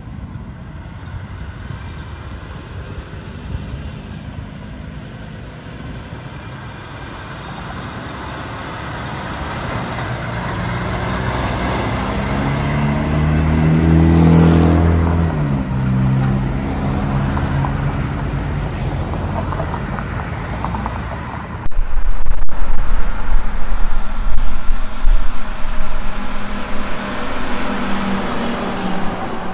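A truck passing by: engine and tyre noise builds, peaks about halfway, and the engine note drops in pitch as it goes past. About two-thirds of the way in, the sound jumps suddenly to a louder, uneven rumble with heavy low buffeting.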